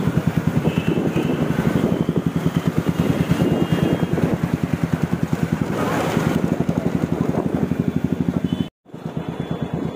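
Motorcycle engine running with a fast, even pulse, mixed with wind noise on the microphone. The sound breaks off for a moment near the end and then resumes.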